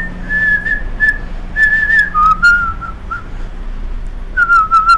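A man whistling a tune in short notes, dropping to a lower run of notes about two seconds in, over the steady low hum of a train carriage, with a few clicks near the end.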